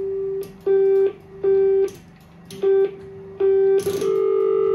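Telephone exchange ringing machine putting out its tones: a low steady tone pulsed on and off in short bursts, with sharp clicks between the pulses, then settling into a continuous tone about four seconds in.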